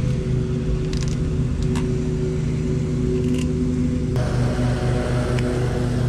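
A steady low mechanical hum of several fixed tones, like an engine running nearby, with a few faint clicks. About four seconds in, a brighter hiss joins the hum.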